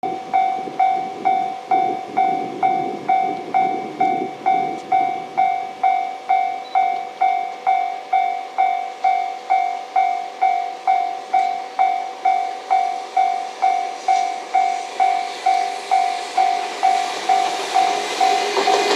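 Japanese level crossing warning bell ringing steadily, just under two strikes a second. Near the end the rising rumble of a JR Freight EF210 electric locomotive and its container train passing close by swells up under it.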